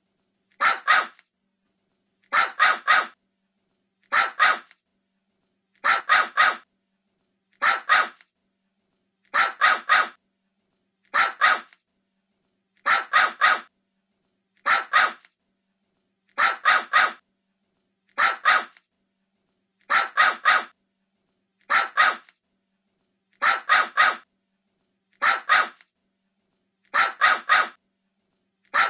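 Puppy barking in quick bursts of two or three short barks, repeating about every second and three-quarters with silence between, as a looped ringtone recording.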